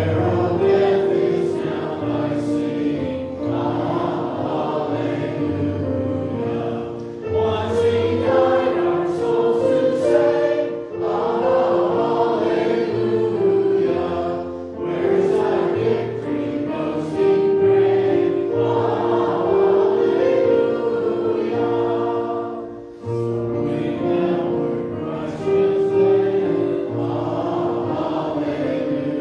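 A church choir singing a slow, sacred piece in phrases of held notes, with steady low notes underneath.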